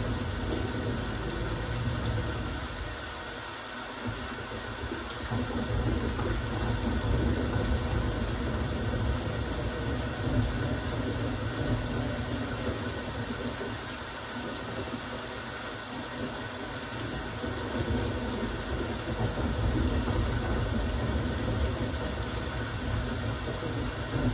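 Steady rain falling: an even hiss of drops with a low rumble underneath that swells and fades every few seconds.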